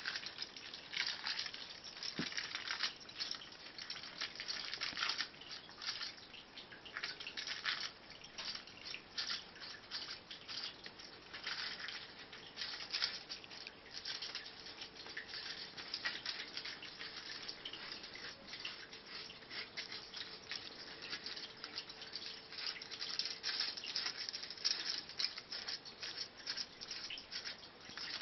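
Three cats eating leftovers off a sheet of crumpled aluminium foil: a continuous, irregular patter of chewing and licking mixed with the foil crinkling as they push it about.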